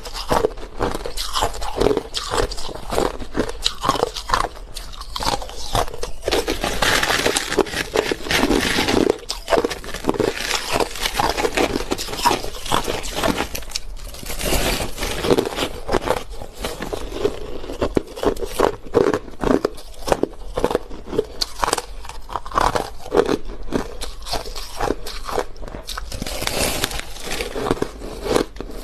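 Crushed ice being bitten and chewed, a dense, continuous crunching made of many rapid small cracks and crackles.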